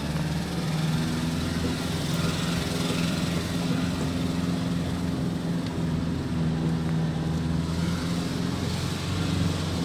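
Nissan Navara D40's 2.5 dCi four-cylinder turbodiesel engine running steadily at low revs, driving in low-range four-wheel drive, its pitch rising and dipping slightly.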